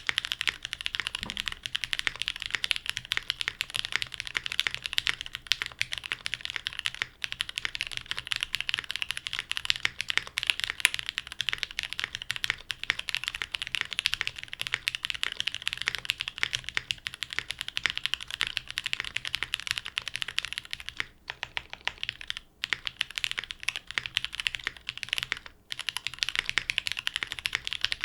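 Fast, continuous typing on a Monokei x TGR Tomo mechanical keyboard: lubed Pewter light tactile switches on a top-mounted aluminum plate with plate and case foam, under GMK keycaps. The keystrokes come in a dense stream with a few short pauses in the last third; the builder says the Pewters still leave a little residual ticking.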